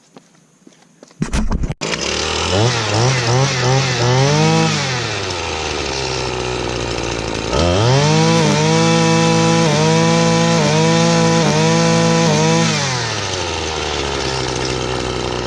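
Husqvarna gas string trimmer fitted with an Echo Speed Feed 400 head, pull-started about a second in and catching at once. It idles, is revved in several quick blips, then is held at high revs for about five seconds with brief regular dips before dropping back to idle. The line will not feed out because the spool's inner piece was fitted the wrong way up.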